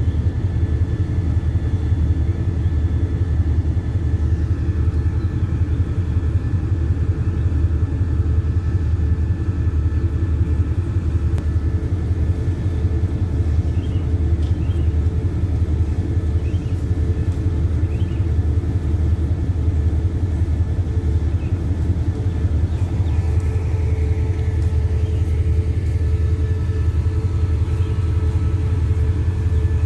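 Diesel passenger train standing at a station platform, its engines idling with a steady, deep, unbroken rumble.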